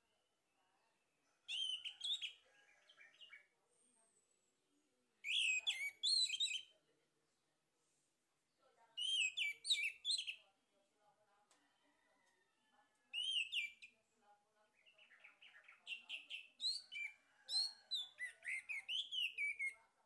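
Male orange-headed thrush singing: five phrases of rapid, varied notes separated by short pauses, the last phrase the longest.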